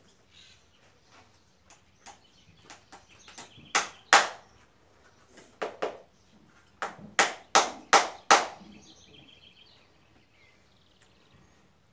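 Farrier's hammer striking a horseshoe on a horse's hoof, driving the nails: light taps first, then hard ringing blows, two together about four seconds in and a run of five, each under half a second apart, near eight seconds.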